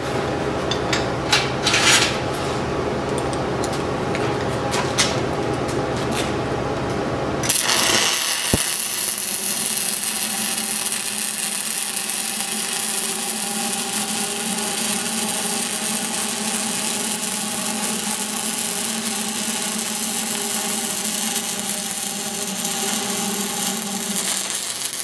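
Stick-welding arc running a downhill root bead on steel pipe: a steady, even crackle that starts abruptly about a third of the way in and holds to the end. Before it, a low hum with a few sharp clicks.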